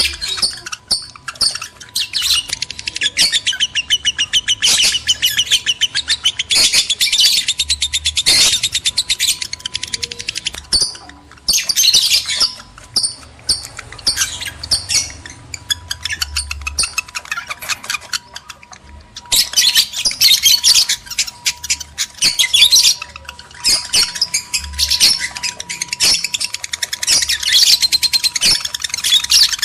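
Lovebirds chattering in rapid, shrill chirps and squawks, in long excited bursts with brief lulls: the calls of male and female lovebirds in breeding condition, used as a lure to stir other lovebirds to mate.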